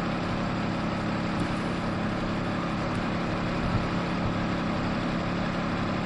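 Fire truck engine running steadily, a low, even hum.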